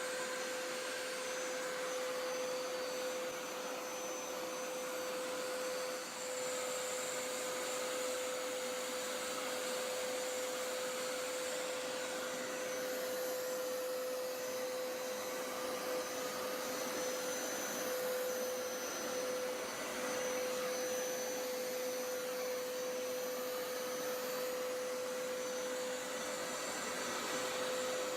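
Hoover Power Scrub Elite Pet upright carpet cleaner running steadily, its motor whining at one pitch over a constant rush of suction. The whine wavers slightly in the middle as the machine is pushed back and forth.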